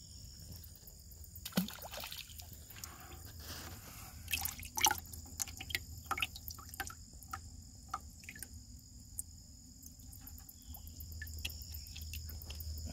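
Water splashing and dripping in a plastic bucket as a bluegill is handled over it: irregular small drips and splashes, the loudest about four to five seconds in. Crickets trill steadily in the background.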